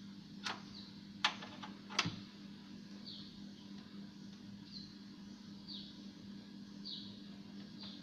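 A bird chirping over and over, short falling chirps about once a second, over a steady low hum, with three sharp clicks in the first two seconds.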